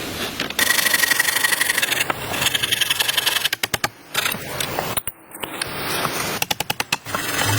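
Wood being cut or worked with a tool: rapid, evenly spaced rubbing and scraping strokes that start about half a second in and come in runs, with short breaks.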